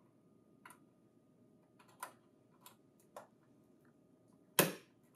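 Small plastic clicks and taps as a Lexmark intelligent storage drive module is handled and pressed onto its connector on a printer controller board: several faint ticks, then one sharper click about four and a half seconds in.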